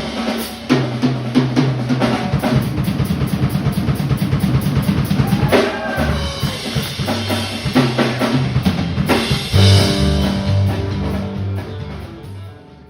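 Background music with a drum kit and bass playing a steady beat, fading out near the end.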